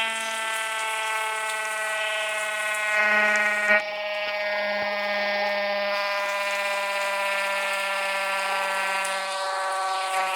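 Siren sounding a steady, held tone rich in overtones, its pitch barely moving, with a short click about four seconds in.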